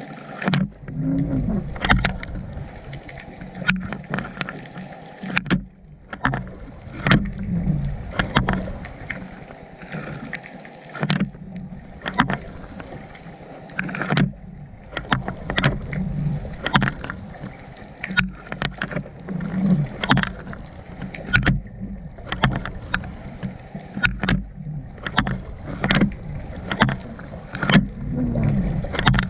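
Underwater sound through a GoPro's waterproof housing: a muffled, steady low rumble and water noise, broken by irregular sharp clicks and knocks, several a second at times.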